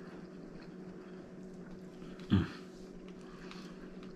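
Quiet room with a steady low hum, broken once about two seconds in by a single short, loud sound.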